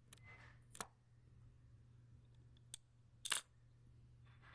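Sharp plastic clicks from a toddler's buckle board as its buckles and latches are worked: a few separate clicks, the loudest a quick double click a little past three seconds in.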